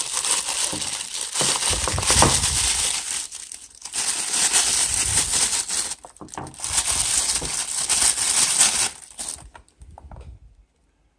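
Packaging crinkling and rustling in the hands as a wristwatch is unwrapped. It comes in three long stretches with short breaks, then fades away near the end.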